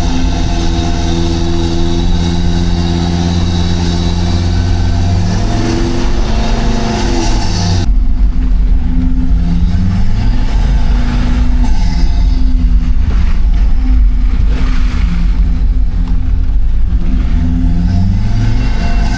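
A 4x4 vehicle's engine running while driving, its pitch falling and rising several times with gear changes and changes in speed. About eight seconds in the sound changes abruptly as the hiss above the engine drops away.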